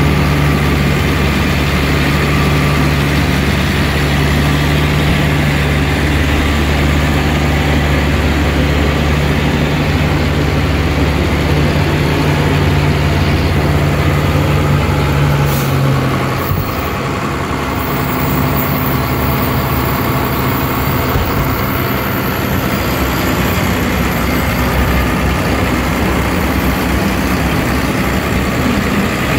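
Large turbocharged diesel engine idling steadily. About halfway through its tone shifts and it gets a little quieter.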